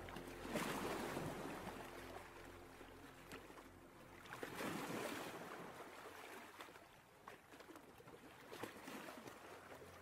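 Ocean surf washing, in two slow swells of noise, the first about half a second in and the second about four and a half seconds in.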